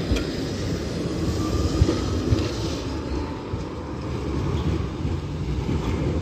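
71-623-02 low-floor electric tram running past close by and pulling away: a steady rumble of wheels on rails, with a faint rising whine about two seconds in.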